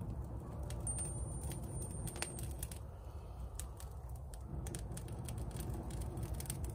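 Wood campfire crackling, with many sharp irregular pops and snaps over a low rumble. A thin high whistle lasts about a second and a half near the start.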